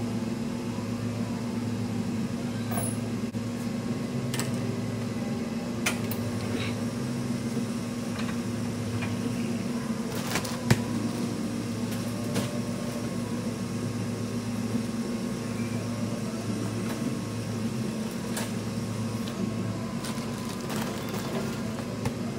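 Steady low mechanical hum of a running appliance, with scattered light clicks and knocks; one sharper knock about ten seconds in.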